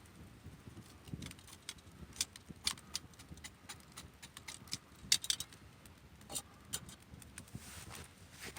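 Wood campfire crackling, with irregular sharp pops and snaps over a faint low rumble.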